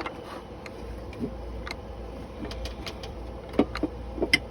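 Scattered light metal clinks and knocks as a cylinder head is shifted about on the engine block, trying to seat it while it catches on the water pump bolts. The knocks come irregularly, a few sharper ones near the end, over a steady low hum.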